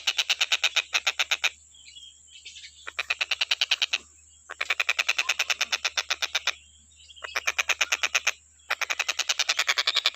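Tengkek buto kingfisher calling in rapid rattling runs of sharp, evenly spaced notes, about nine a second, broken by brief pauses four times.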